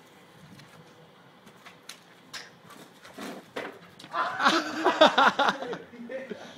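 Faint scattered clicks and taps, then about four seconds in a loud, wordless outburst of several men's voices that lasts a second or two.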